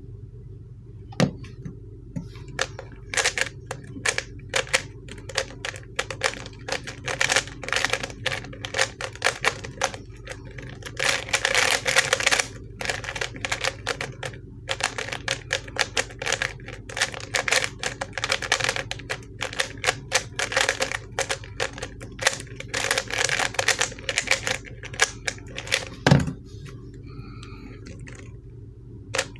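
ShengShou 3x3 speedcube being turned fast by hand during a timed solve: rapid plastic clicking and clacking of the layers, in bursts with short pauses between them. The cube is stiff and hard to turn. A single louder thump near the end.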